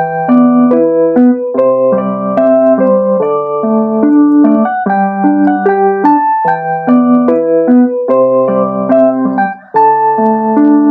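Casio CT-S1 keyboard playing its Electric Piano 2 tone: chords and a melody line, the harmony changing about twice a second, with a brief break near the end.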